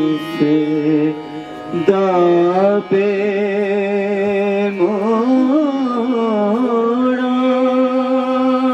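Men singing a slow song in long held notes that bend and waver, the lead voice sung into a handheld microphone.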